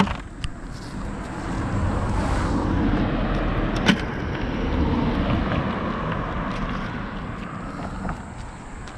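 A car driving past on the bridge: tyre and engine noise swells over a few seconds, then fades as it moves away. A sharp knock sounds about four seconds in.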